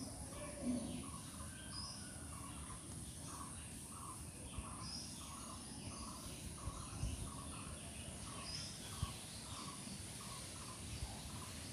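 Faint outdoor background with a short animal call repeated about two to three times a second, and a higher chirp every couple of seconds, over a low steady hum.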